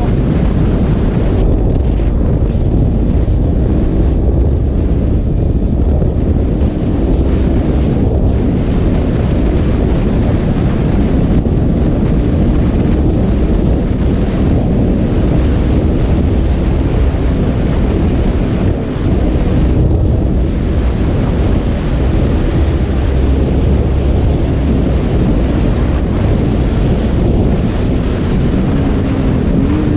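Heavy wind buffeting on the microphone while riding a KTM RC 200 motorcycle at speed, a steady loud roar. The bike's single-cylinder engine can be heard faintly underneath.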